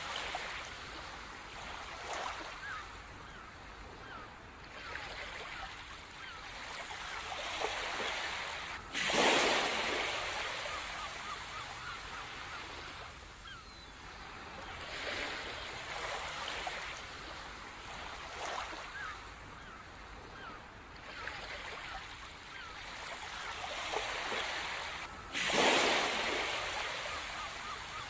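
Ocean surf on a shore, rolling in and out in slow swells every few seconds. A sudden loud wave breaks about nine seconds in and another near the end. Faint bird calls sound over the surf.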